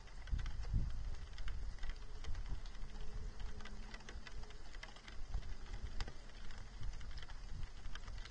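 Light, irregular ticking of precipitation striking an outdoor trackside webcam's housing, over a low wind rumble on its microphone.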